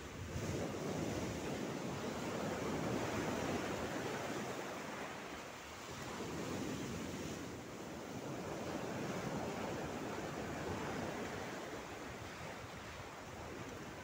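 Mediterranean sea waves breaking and washing over a flat rock shelf, the surf swelling and ebbing in several surges a few seconds apart.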